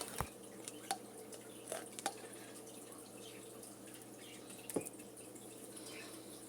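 Faint, scattered clicks and taps of a kitchen utensil as minced garlic is spooned in, the loudest a single tap about three-quarters of the way in.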